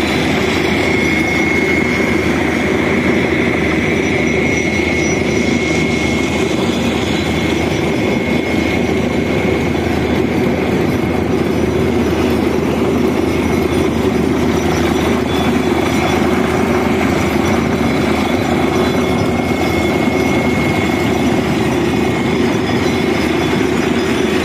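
Borewell drilling rig and its truck-mounted air compressor running steadily during drilling: a loud, even machine noise with a faint high whine through it.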